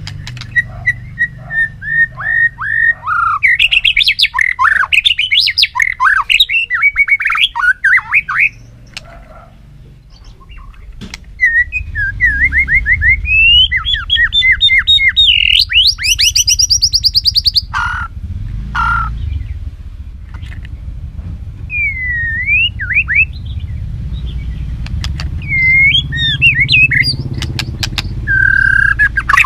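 White-rumped shama in full, fired-up song: loud, varied whistled phrases and rapid trills in two long bursts with a short pause between, then a few harsher notes and shorter phrases. A steady low hum runs underneath.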